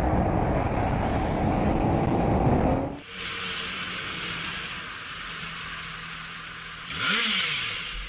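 Motorcycle on the move with heavy wind rushing over the microphone, cut off abruptly about three seconds in. Then a motorcycle engine ticking over steadily in stopped traffic, with one short throttle blip, rising and falling, about seven seconds in.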